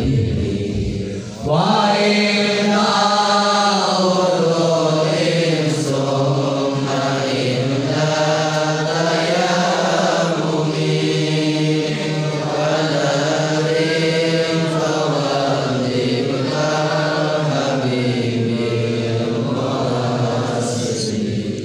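Arabic devotional verse on the sunnah of saying Bismillah, chanted by voice without instruments in long, gliding melismatic phrases to the Bahar Thowil (tawil meter) melody, a new line starting about a second and a half in.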